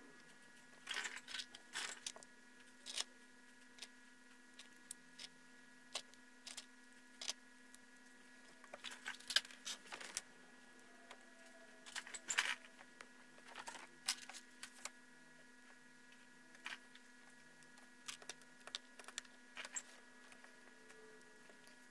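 Scattered small clicks and taps of a smartphone being reassembled with small hand tools, over a steady electrical hum.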